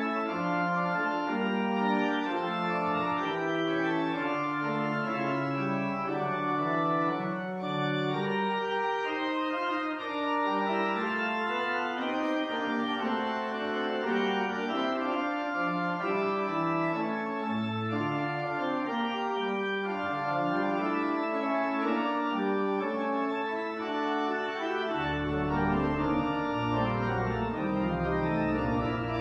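Organ music: slow, sustained chords that change about every second, with deep bass notes joining near the end.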